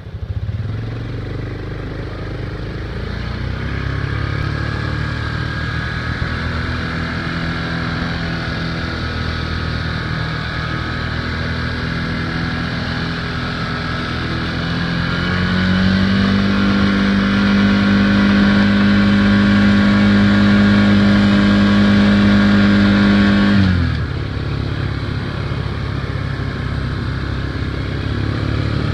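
A motor vehicle's engine runs continuously, revving up about halfway through and holding a high, steady pitch. Near the three-quarter mark it drops off sharply to a lower running pitch.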